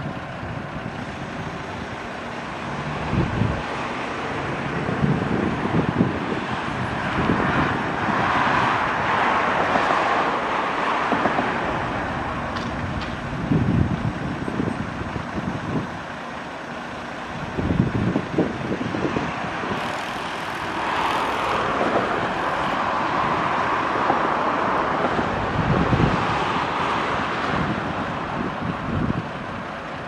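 Road traffic: vehicles pass by in two long swells, one about a quarter of the way in and one past the middle, over a steady background of traffic noise. Low gusts of wind buffet the microphone throughout.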